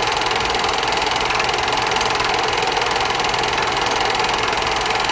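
A small machine running steadily with a fast, even mechanical clatter that does not change.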